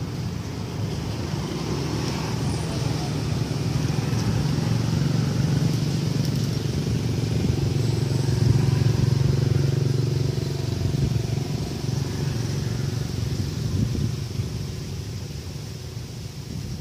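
A low engine drone that grows louder toward the middle and then fades.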